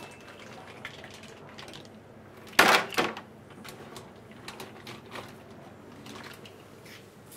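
Cooked blue mussels scooped out of a steel pot with a wire skimmer and dropped into a plastic container, the shells clattering; one loud clatter about two and a half seconds in, then a few fainter clicks.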